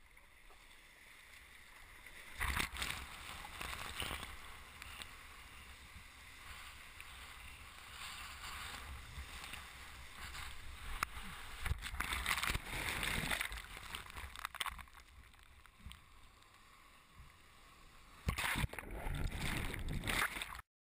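Sea water sloshing and splashing against a board-mounted GoPro at the surface of the surf, heard muffled through the camera housing. There are louder rushes of water about two and a half seconds in, around twelve seconds in and near the end, then the sound cuts off abruptly.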